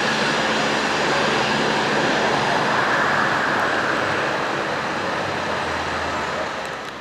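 Eurofighter Typhoon's twin EJ200 turbofan jet engines running on the ground, a steady loud rushing roar with a faint hum under it, dropping a little near the end.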